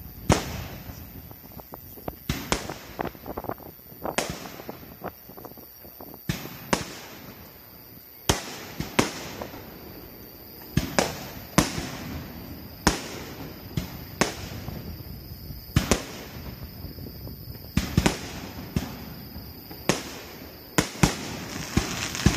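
Aerial firework shells bursting in the sky: a string of sharp bangs, one every second or two, each trailing off briefly.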